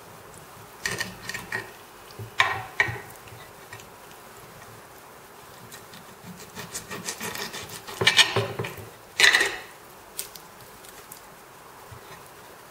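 Kitchen knife cutting through a raw chicken wing joint on a hard cutting board: irregular scraping and sawing strokes with clicks of the blade on the board, the loudest cluster a little past the middle.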